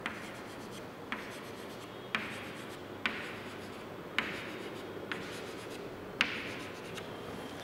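Chalk tapping dots onto a chalkboard: about seven sharp taps roughly a second apart, each trailing into a short scrape.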